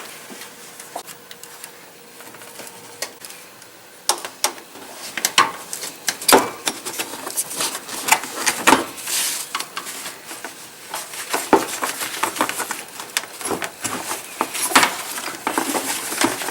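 Scattered metal clinks, taps and short scrapes of a hand tool working on the serpentine belt tensioner and pulleys as the belt is slackened and worked off, mostly starting about four seconds in.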